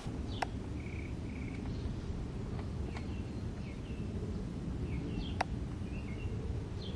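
Outdoor ambience: a steady low rumble with small birds chirping now and then, and two sharp clicks, one about half a second in and one about five seconds later.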